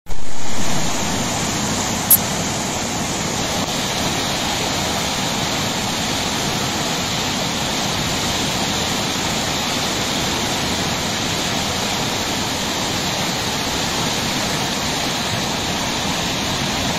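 Steady rushing of a swollen river in flood, fast muddy water churning along a bridge. A single sharp click about two seconds in.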